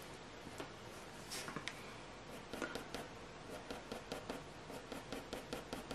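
4B graphite pencil scratching across hot-press watercolour paper in short, quick strokes, several a second, shading textured fur.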